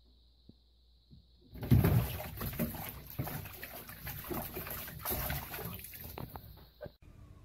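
A cat drops into a filled bathtub with a loud splash about a second and a half in, then splashes and scrabbles against the tub wall as it struggles to climb out. The sound cuts off abruptly near the end.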